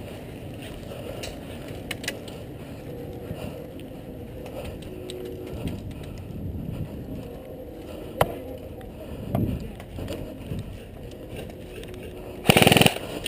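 Rustling and handling noise on a body-worn camera with a few sharp clicks, then near the end a short full-auto burst from an airsoft electric rifle lasting about half a second.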